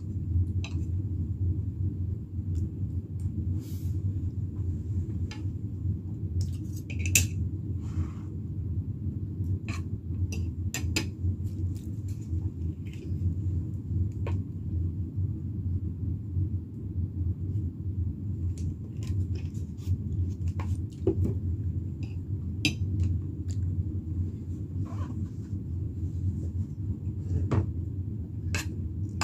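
Metal fork and spoon clinking and scraping against a ceramic plate during a meal, in short irregular clicks over a steady low hum.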